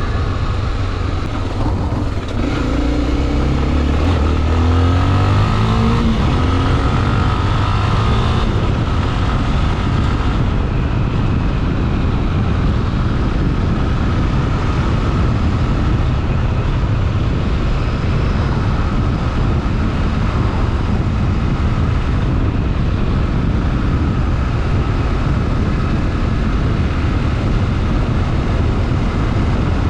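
Honda XRE 300 Rally's single-cylinder four-stroke engine rising in revs a couple of seconds in, then running steadily under a loud, constant rush of noise.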